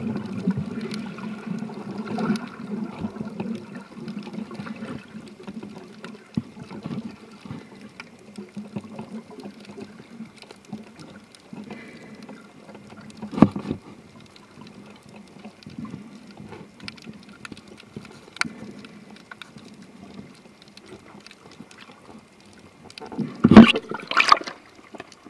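Underwater sound through a camcorder's waterproof case: a muffled low hum with scattered clicks and knocks, and one sharper knock about halfway through. Near the end comes a loud burst of splashing and bubbling as the camera rises to the surface.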